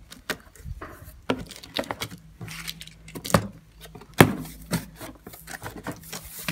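Cardboard box being opened by hand: flaps pulled apart and scraping, with irregular knocks and rustles as the packed parts inside are touched, the loudest knock about four seconds in. A faint steady hum sits underneath.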